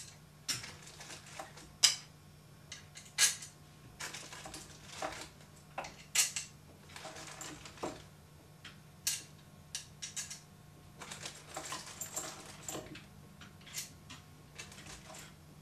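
Small screws and nuts clicking and clinking against a metal plate as they are fitted into its holes by hand: irregular sharp clicks, a few of them louder clacks.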